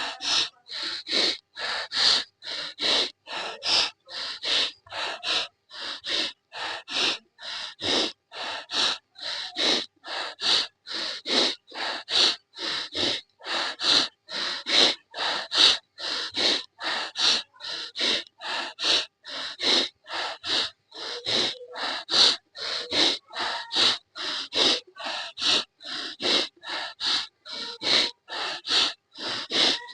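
Rapid, forceful breathing through the nose in anulom vilom (alternate-nostril pranayama), an even rhythm of hissing breath strokes about two a second.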